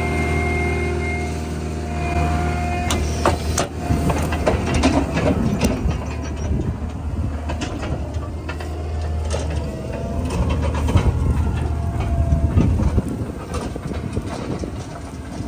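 Diesel machinery running with a steady low hum and a held whine, as a big square straw bale is shoved into a walking floor trailer. Sharp knocks and clatter start about three seconds in and come again later on.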